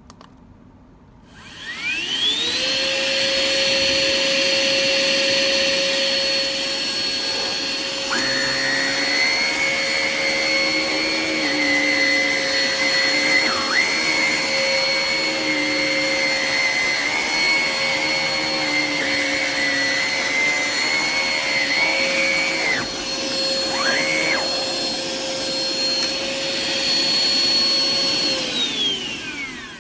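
Hoover ONEPWR Evolve Pet Elite cordless stick vacuum switched on, its motor spinning up with a rising whine and then running steadily. About eight seconds in, a second, higher whine joins and wavers, dipping briefly a couple of times before it drops out. Near the end the motor is switched off and winds down with a falling whine.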